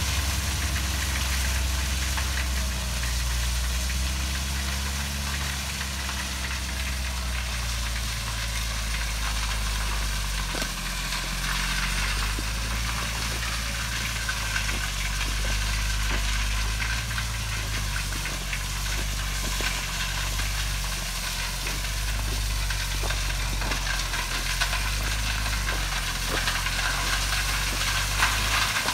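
Dump truck's diesel engine running steadily as the truck creeps along with its bed raised, tailgate-spreading gravel. Small stones patter and crunch as they pour out onto the driveway.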